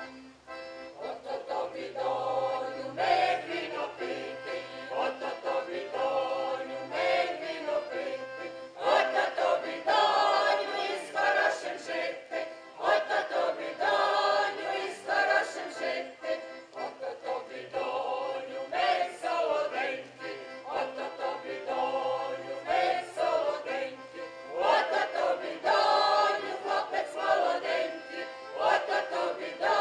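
A group of voices singing a Ukrainian folk song together in phrases, over a steady held note.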